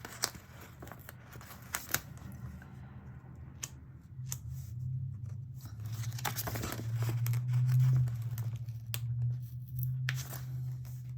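Paper rustling and small tearing clicks as a date-number sticker is peeled off its backing sheet. A low, steady hum comes in about four seconds in and is loudest near eight seconds.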